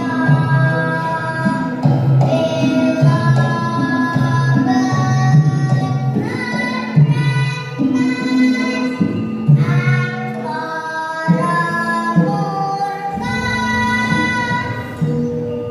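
A child singing a Javanese tembang in long held notes that slide and waver between pitches, over an instrumental accompaniment with a pulsing low part.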